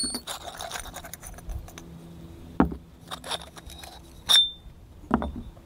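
Stainless steel baffles of a Dead Air Mask .22 suppressor clinking and scraping against each other and the titanium tube as they are worked out of it: a few scattered metallic clicks, one about four seconds in ringing briefly.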